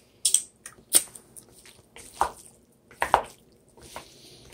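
Two wooden spatulas tossing broccoli and sticky, cheesy ground turkey in a nonstick pan. There are about four sharp knocks of wood against the pan, with soft scraping and squishing of the food between them.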